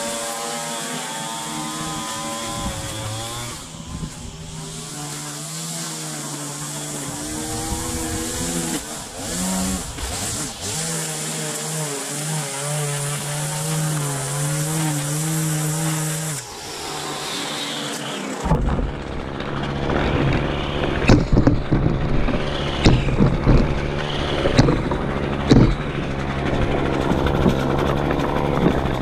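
String trimmer running along a concrete walkway, its motor revving up and down. After about 18 seconds it gives way to a steadier engine hum with a clatter of sharp knocks and rattles.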